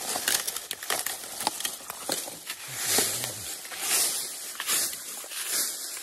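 Hands digging and scooping through wet mud and shallow water, squelching and splashing, with dry bamboo leaves crackling as they are pushed aside. Irregular wet clicks run throughout, with louder surges of splashing about three and four seconds in.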